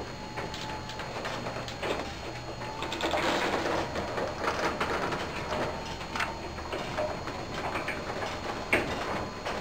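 Martin DC3700e-O garage door opener running to close the garage door, the door rattling and clunking as it travels, with a louder knock near the end.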